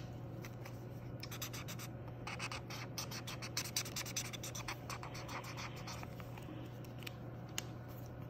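Felt-tip marker scribbling on paper, colouring in a small area of a colouring-book page in quick back-and-forth strokes. The strokes come thick and fast for several seconds in the middle, then thin out to a few scattered taps near the end.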